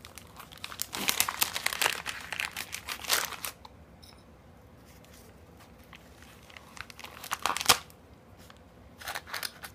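Grey plastic poly mailer bag crinkling as it is handled and pulled open. There is a quieter lull in the middle and one sharp crackle about three-quarters of the way through.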